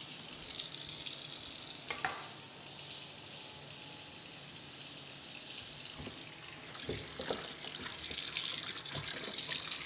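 Tap water running into a stainless steel bowl of parboiled beef in a steel sink, a steady splashing hiss. Near the end, hands rub and turn the meat under the stream to rinse off the boiled-out scum, adding louder splashes.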